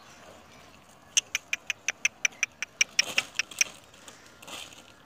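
A rapid run of about a dozen sharp clicks, roughly five a second, lasting about two and a half seconds, followed by a brief softer rustle near the end.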